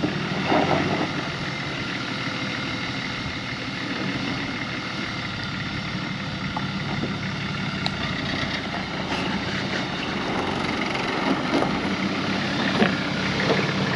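A 4WD crawling slowly along a rough dirt track, heard from inside the cabin: a steady engine hum with occasional knocks and rattles.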